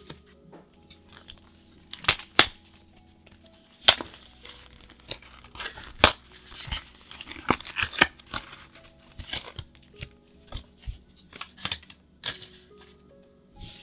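Packaging of a card-sleeve pack being opened and handled: short, sharp rustles, snaps and tearing of plastic wrap and cardboard in irregular bursts, over soft background music.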